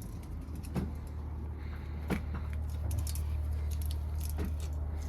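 Light metallic clicks and clinks of a saw chain and guide bar being handled while fitted onto a chainsaw, three sharper clicks among them, over a steady low hum.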